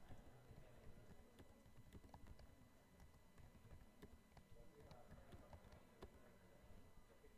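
Faint typing on a computer keyboard, irregular key clicks.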